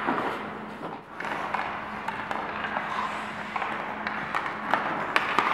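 Ice hockey practice on the rink: skate blades scraping the ice and a series of sharp clacks of sticks and pucks, from about a second in, over a steady low hum.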